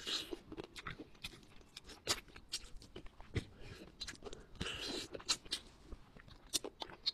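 Close-up wet mouth sounds of someone eating rabbit head by hand: irregular lip smacks and sharp clicks, with two brief slurps as meat is sucked off the bone, one at the start and one about five seconds in.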